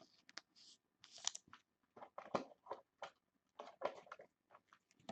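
Faint handling noises from trading cards and their packaging being moved about: irregular soft rustles and small clicks, a few each second.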